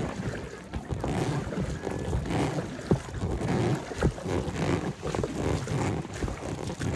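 Oars of an inflatable rowboat stroking through lake water, the splashing swelling and fading with each stroke, with a couple of sharp knocks about three and four seconds in.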